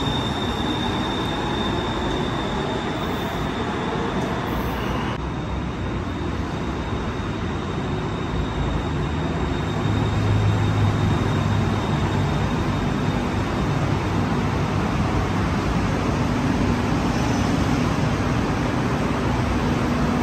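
Bangkok BTS Skytrain electric trains at an open-air elevated platform: steady rumble and hum of train running noise, with a thin high whine early on and the sound growing louder about halfway through as a train pulls in alongside.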